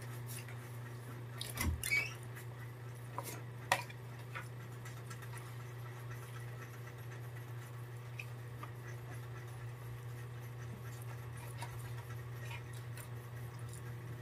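Spoons clicking and scraping on plastic plates while people eat, a few light clicks in the first four seconds and faint small eating sounds after, over a steady low hum.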